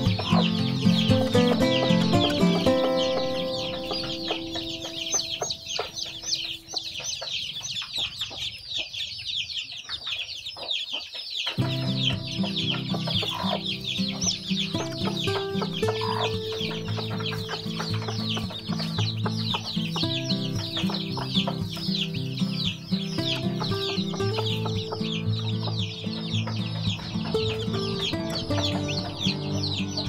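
A brood of newly hatched chicks peeping constantly, many high-pitched peeps in quick succession, over background music.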